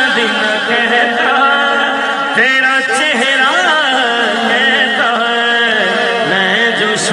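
A man singing long, ornamented held notes of an Urdu song into a microphone, his pitch bending and wavering between the sung lines.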